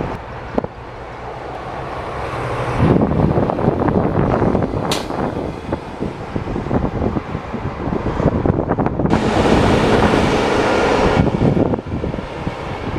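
Heavy trucks driving by: engine rumble and road noise that swells and changes, with a loud hiss for a couple of seconds about two-thirds of the way through.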